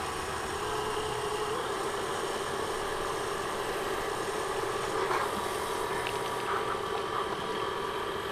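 Steady hiss of water spraying from a garden hose wand onto an upturned RC truck, with a faint steady hum underneath.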